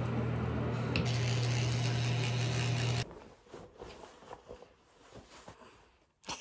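Electric toothbrush buzzing steadily, cutting off abruptly about three seconds in. After it come soft irregular rustles of clothing as a scrub top is pulled on.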